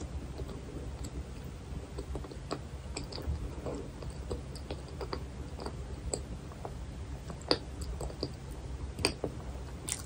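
Close-miked mouth sounds of a woman chewing frozen cream-filled milk bread: soft wet clicks and smacks scattered throughout, with a few louder clicks in the last few seconds as she goes for another bite.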